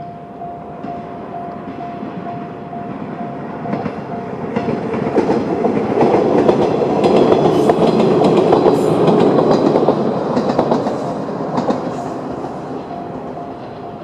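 Electronic level-crossing bell (JR Tohoku-type tone) ringing steadily as a Joshin Electric Railway 700 series electric train passes, its wheels clattering over the rail joints. The train noise builds, is loudest in the middle and fades, drowning the bell for a while; the bell stops near the end as the crossing clears.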